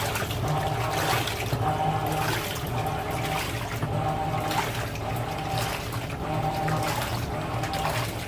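Electrolux Premium Care LPR14 washing machine agitating a load of towels in water, with water sloshing. The motor hums and whines in short pulses about once a second as the drum swings back and forth during the wash.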